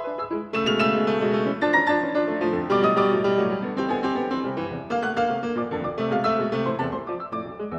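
Steinway & Sons concert grand piano played solo: a dense passage of many notes that grows louder about half a second in.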